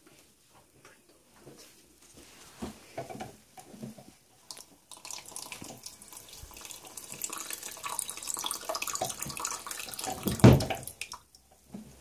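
Water running from a bathroom basin tap into a small plastic cup. The water starts about five seconds in, with light knocks of handling before it. Near the end there is one loud thump, and the water stops just after.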